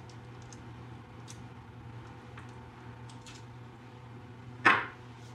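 Quiet kitchen room tone with a steady low hum and a few faint light clicks, then one short louder noise near the end.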